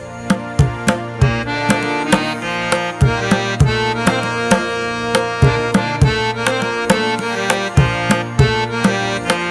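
Instrumental music: hand-drum strokes in a steady rhythm, about three a second, each with a low ringing tone, under sustained reedy melodic tones.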